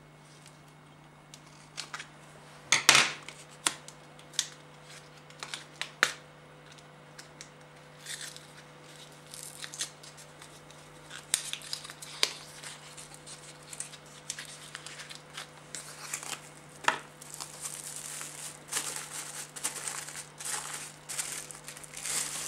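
Small cardboard boxes and plastic wrapping handled by hand: a few sharp snaps and clicks in the first few seconds, then steady crinkling and rustling of plastic.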